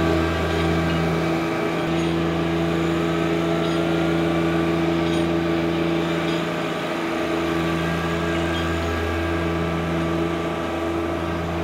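John Deere subcompact tractor's diesel engine running at a steady speed while towing a core plug aerator across the lawn.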